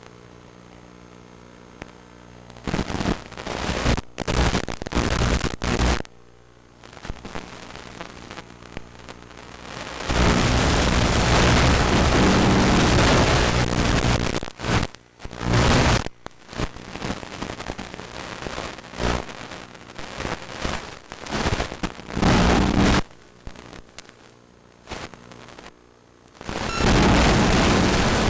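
FPV quadcopter's electric motors humming steadily, then loud, irregular rushes of wind noise buffeting the microphone as the drone flies, with a long continuous blast about ten seconds in.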